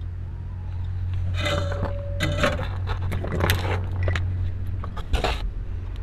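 Small circuit board and parts being handled on a workbench: a few short clicks and scrapes over a steady low hum.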